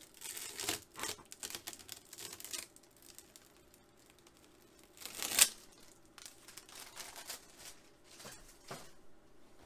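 Clear plastic bag crinkling as it is handled and pulled away from a CRT. A run of rustles for the first two and a half seconds, a quieter gap, then one loud crinkle about five seconds in and a few softer rustles after it.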